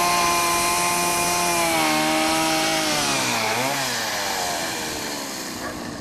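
Chainsaw motor running at a steady high pitch, then slowing from about two seconds in, its pitch dropping and the sound fading toward the end.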